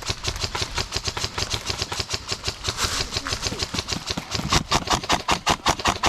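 Airsoft gun firing a steady stream of rapid shots, about six or seven a second. The shots get louder about four and a half seconds in.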